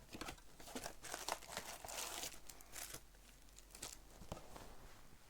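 Shrink-wrap and foil-wrapped trading card packs crinkling and tearing in the hands, in irregular rustling bursts that thin out after about three seconds.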